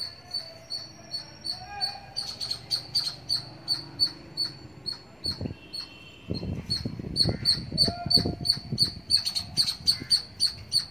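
A small bird chirping over and over, short high notes about three a second, getting louder in the second half. A stretch of low rumbling noise joins it past the middle.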